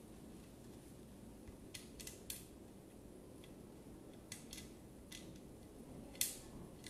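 Scattered faint metallic clicks of small screws being handled and set by hand into the gear housing of a Bosch GKS 140 circular saw, the sharpest click near the end.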